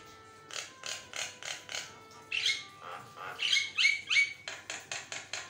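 Javan myna (jalak kebo) singing in full voice: a fast run of harsh, scratchy chattering notes, about four a second, mixed with short rising whistles. It is loudest about four seconds in.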